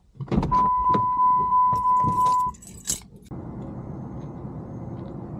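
Keys jangling and handling clicks while a steady electronic beep sounds for about two seconds, then a sharp knock like a door shutting. After that, a sudden change to a steady even rushing noise.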